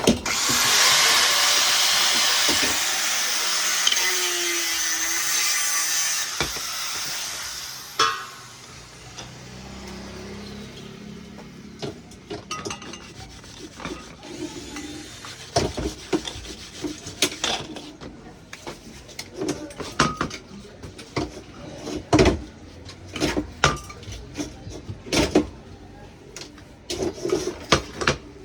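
Repair work with tools: a loud rasping, scraping noise for about seven seconds, then scattered knocks and taps.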